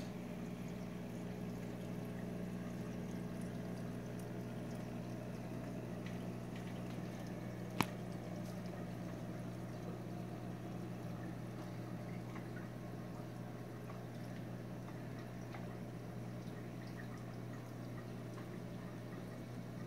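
Reef aquarium's circulating water trickling and pouring over a steady low equipment hum, with one sharp click about eight seconds in.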